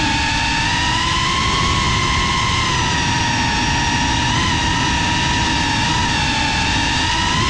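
FPV racing quadcopter's motors and propellers whining at a high, nearly steady pitch that wavers slightly as the throttle changes, over a rushing of wind and prop wash, heard from the camera on board the drone.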